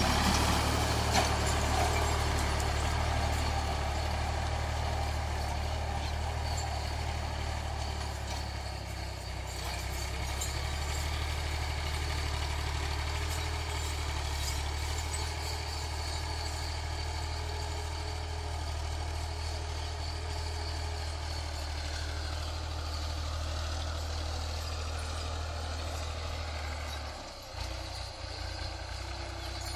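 Fiat 480 tractor's three-cylinder diesel engine running steadily while pulling a cultivator through the soil. It gets quieter over the first several seconds as the tractor moves away, and dips briefly near the end.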